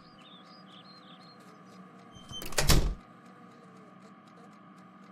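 A cabinet door sliding open, one short noisy scrape that swells and cuts off about two and a half seconds in, over a quiet background with a few faint chirps.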